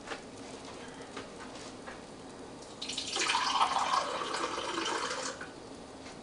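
Water being poured in a stream for about two and a half seconds, starting about three seconds in, its pitch dropping as it goes. A few faint light knocks come before it.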